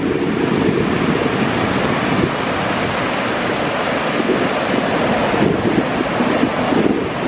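Ocean surf washing in with a steady rush, with wind buffeting the microphone.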